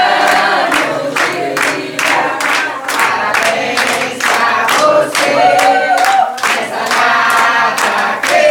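A group of party guests singing a birthday song together, clapping in a steady rhythm as they sing.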